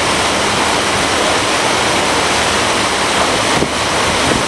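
Steady rushing noise of water churned along the hull of a moving lake cruise boat.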